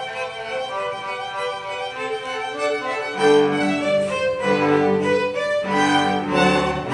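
Student string orchestra playing: the violins carry the line on their own at first, then about three seconds in the lower strings come in beneath them and the music grows louder.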